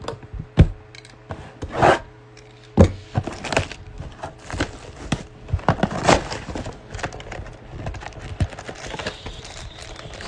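Plastic shrink wrap crinkling and tearing off a cardboard trading-card mega box, with sharp knocks and rubbing as the box is handled and its flap pulled open.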